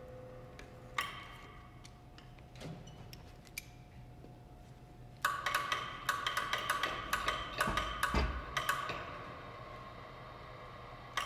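Overhead crane hoist lifting a cast-iron Goulds centrifugal pump assembly on a sling. A quick run of metallic clanks and clicks with a ringing tone starts about five seconds in and stops about nine seconds in, with a heavy low knock near eight seconds as the pump comes up off the bench.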